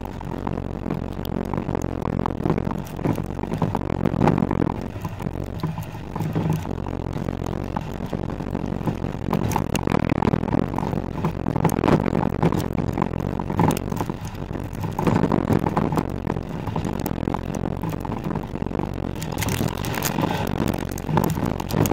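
Skoda Octavia TDI's tyres rolling fast over a sandy, rutted dirt track, with a continuous rush of road and wind noise and constant clatter and scraping of grit and small stones against the wheel and underbody. A steady low drone from the diesel engine runs underneath, with the noise swelling and easing as the suspension works over bumps.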